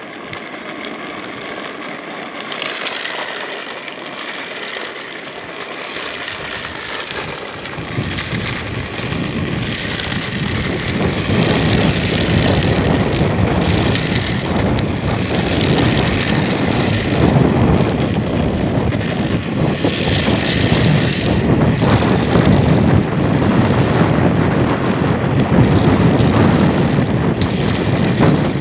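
Rushing wind on the microphone and wheels rolling on asphalt while riding along with drift trikes. A deeper rumble comes in about seven seconds in, and the noise builds until about twelve seconds, then holds loud and steady.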